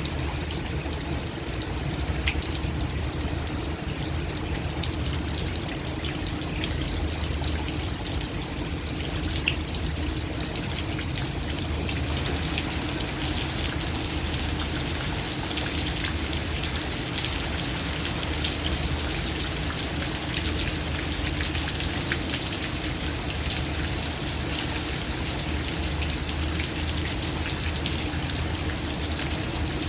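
Heavy rain pouring down, a steady hiss full of small drop impacts, growing louder about twelve seconds in.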